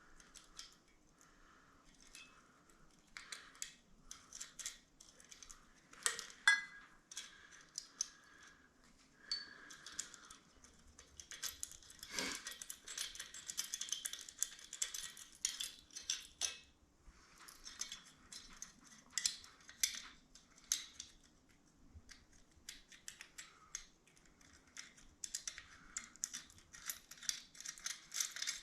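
Small hand tools and metal parts clicking, clinking and scraping irregularly while electrical wires are connected on a circulator pump's cord.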